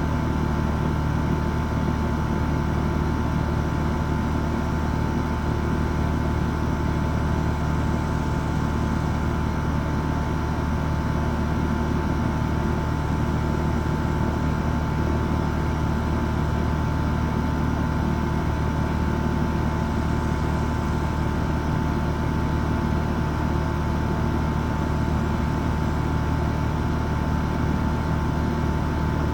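HVAC unit running steadily: a constant low motor hum with a steady whining tone on top.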